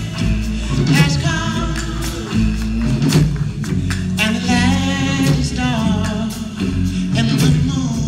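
Male vocal group singing live over a backing band, with bass and drum hits under the voices.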